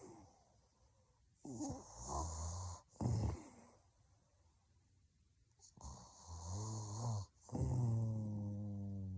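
A woman snoring heavily in her sleep: rasping snores come in two bouts with a few seconds of quiet between, and the last one is long and drawn out.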